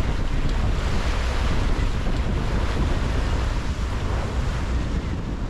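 Water rushing and splashing along the hull of a Contessa 35 sailing yacht moving through choppy sea, with steady wind buffeting the microphone.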